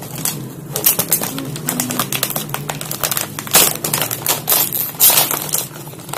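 Plastic snack bag crinkling and crackling as it is torn open and handled by hand, a rapid, irregular run of sharp crackles.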